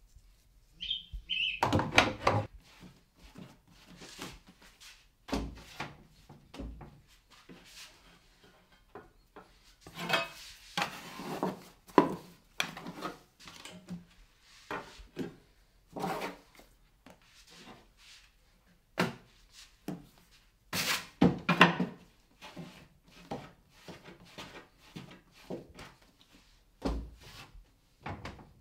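Irregular knocks, thuds and scrapes of a baker handling dough: a metal dough scraper cutting and scraping dough pieces on a weighing scale and a floured work bench.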